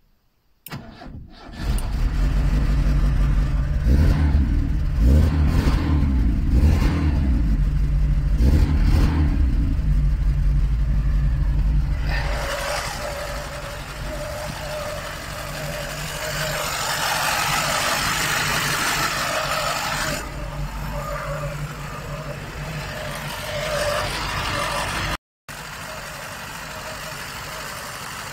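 Lada Niva 1.7 engine starting after a no-start, now that a broken wire that killed the spark has been patched. It catches about two seconds in and runs at raised, uneven revs, then drops to a steady idle about twelve seconds in.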